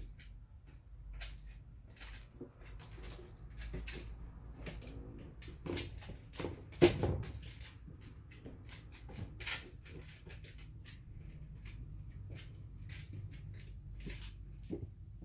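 A 15-year-old Shiba Inu moving about on a tiled floor: scattered clicks and scrapes of its claws and trailing leash, with one much louder sudden knock about seven seconds in.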